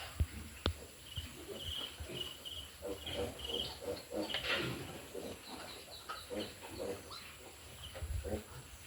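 Pigs grunting in short, irregular bursts, with a run of short high chirps starting about a second in and two sharp knocks near the start.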